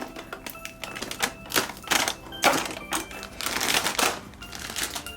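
The cardboard door of an advent calendar is being pushed and torn open and the small plastic bag of toy pieces inside is handled. The sound is an irregular run of clicks, rips and crinkly rustles.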